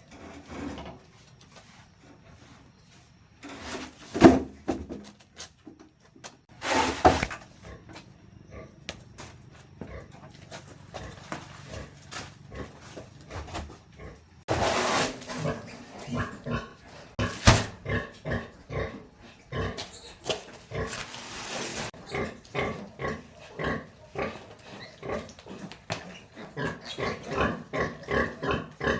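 Pigs grunting in short repeated grunts that come faster and more regularly toward the end. There are several loud, sudden noisy bursts in the first half.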